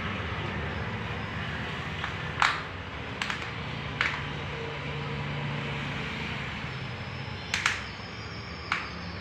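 About five sharp, scattered clicks as an inline roller skate's ankle buckle and strap are fastened and tightened on the foot, over a steady low background hum.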